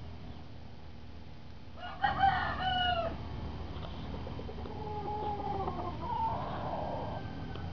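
Roosters crowing: a loud crow about two seconds in, then a fainter, longer crow a couple of seconds later.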